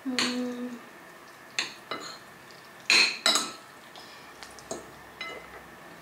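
Metal fork and spoon clinking and scraping against a ceramic plate while tossing pasta. There are several separate sharp clinks, the loudest two close together about three seconds in, and fainter ones after.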